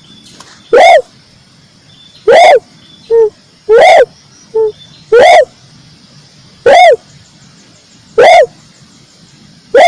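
Tekukur merah (red dove) calling: one loud note that rises and falls in pitch, repeated seven times about every second and a half, with short, quieter, lower notes between some of them. The notes are harsh and clipped from being played at full volume.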